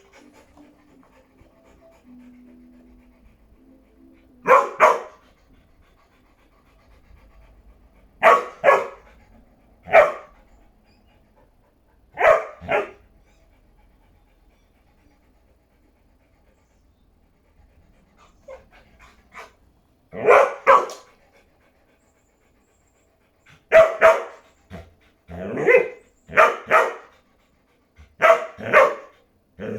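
A dog barking in short bursts, mostly pairs of barks, with pauses of a few seconds between; the barks come faster in the last few seconds. Faint music fades out in the first few seconds.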